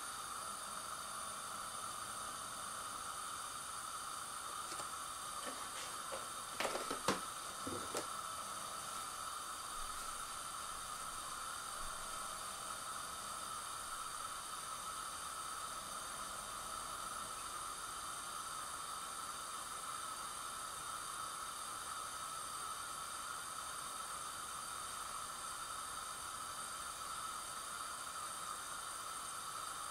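Gas hob burner hissing steadily under a carbon steel frying pan as the oil heats, with a few sharp knocks about seven seconds in.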